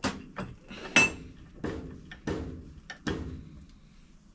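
Irregular clanks and knocks of metal parts and tools being handled on a workbench, about seven in four seconds, one with a brief metallic ring about a second in.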